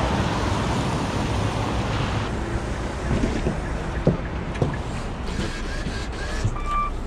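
Steady rushing wind and road noise with a low rumble, as from a car driving at speed, with a couple of short knocks midway and a brief high beep near the end.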